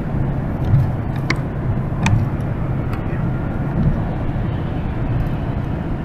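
Steady road and engine rumble heard inside a car's cabin while driving at highway speed, with two short clicks about a second and two seconds in.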